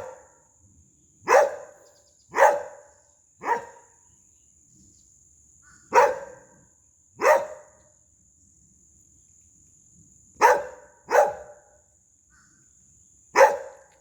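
A dog barking in single loud barks, about nine of them, spaced irregularly, sometimes close in pairs and sometimes with pauses of two to three seconds. They are warning barks at birds flying through the trees.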